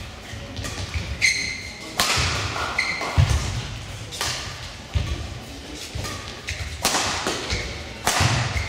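Badminton singles rally: rackets striking the shuttlecock about four times, with thuds of feet landing on the court floor and a couple of short shoe squeaks.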